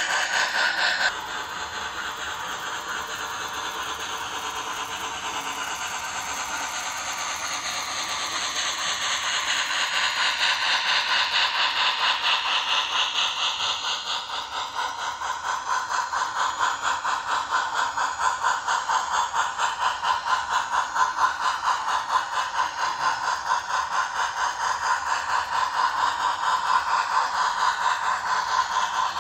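Sound system of an MTH HO scale DM&IR 2-8-8-4 Yellowstone steam locomotive model playing fast, steady steam chuffing through its small onboard speaker. The sound drops suddenly about a second in, then grows louder as the engine comes back toward the microphone.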